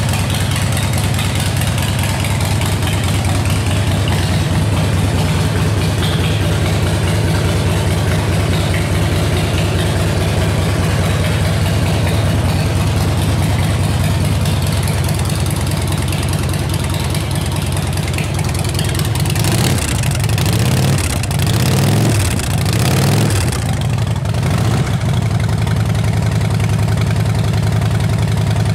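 Harley-Davidson Night Train's air-cooled V-twin idling steadily, then revved in a few short throttle blips about twenty seconds in before settling back to idle.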